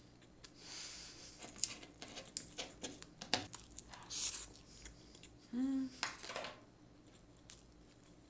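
Close-miked eating of a steamed swimming crab (kkotge): sucking and slurping meat and roe from the split crab body, with sharp crackles and clicks of cracking shell. A short hummed 'mm' about five and a half seconds in.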